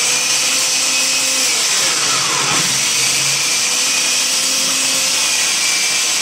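Electric food processor running flat out with its grater disc shredding carrots: a loud, steady motor whine with grinding, its pitch sagging briefly about two seconds in and again near the end.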